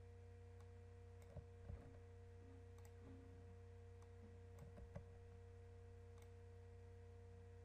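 A few faint computer mouse clicks and keystrokes over a steady low electrical hum, otherwise near silence.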